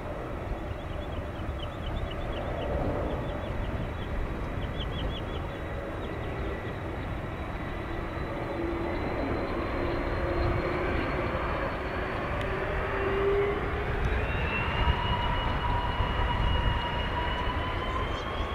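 Jet airliner engines running: a steady rumble with whining tones that rise slowly in pitch through the second half. A few short high chirps come in the first few seconds.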